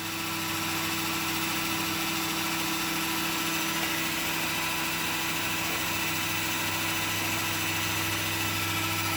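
Home-built CNC router running a program: a steady machine hum with constant tones from the spindle motor and drives, rising slightly in level about half a second in.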